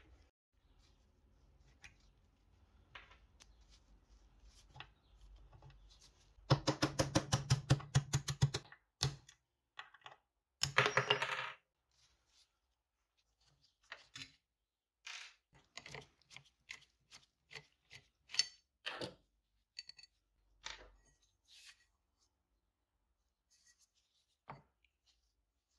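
Hand tools and metal parts during the disassembly of a Roulomat Senior 60 coin-counting machine: a rapid run of clicks for about two seconds as a screwdriver works a small fitting on the top, a short scrape, then scattered metal clinks and knocks as parts are handled and the coin chute is lifted off.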